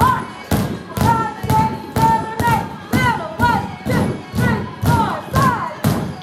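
Upbeat recorded music with a steady beat, mixed with drumsticks thumping on inflated exercise balls in time with it, about two strikes a second.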